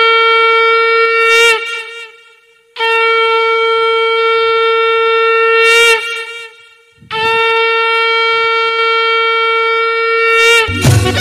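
Conch shell (shankha) blown in three long, steady blasts, each held for a few seconds and bending slightly in pitch as it ends. Devotional music with drums comes in near the end.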